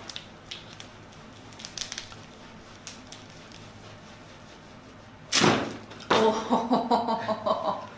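A few faint clicks, then about five seconds in a sudden loud rushing burst as the chiropractor delivers the adjustment thrust on the patient's exhale. It is followed by a drawn-out, wavering groan of "oh".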